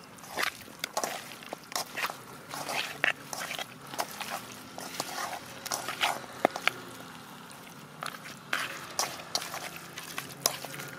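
Hand kneading and mixing spice-coated chicken pieces in a metal kadai: irregular wet squelches, with fingers and pieces knocking and scraping against the pan.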